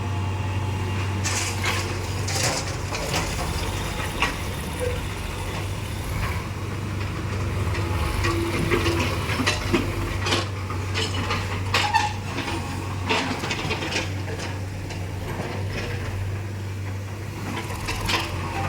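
Steady low engine hum of a machine running, with scattered clanks and knocks throughout.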